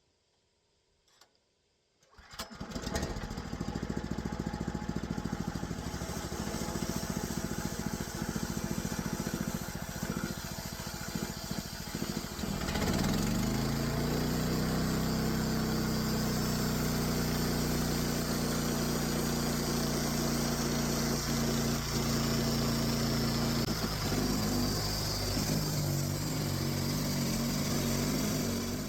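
Portable band sawmill's gasoline engine starting about two seconds in and running unevenly at low speed, then revving up about halfway through to a steady high speed as the blade saws through a pine log. The engine drops off right at the end.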